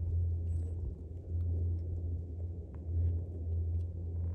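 A low, steady rumble that swells and dips, with a few faint ticks above it.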